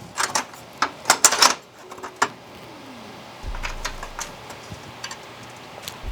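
Metal parts of a PC case clicking and clinking as they are handled and fitted, with a quick run of sharp knocks in the first couple of seconds. After about halfway there is a low rumble with a few faint ticks.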